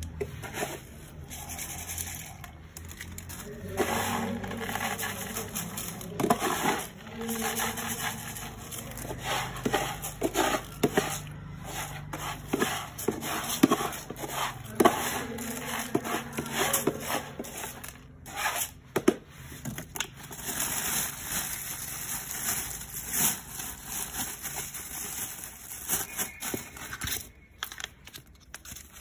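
A plastic cat-litter scoop scraping and sifting through clumping cat litter in a plastic litter box, with irregular scrapes and gritty clicks of the granules.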